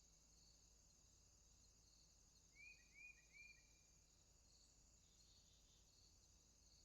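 Faint chorus of crickets: a steady high trill, with a softer chirp repeating about once a second. About two and a half seconds in come three quick upswept chirps in a row, the loudest sound.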